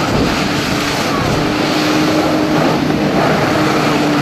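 Watercraft engine running steadily: a held engine hum with a slight shift in pitch, over a loud rushing noise.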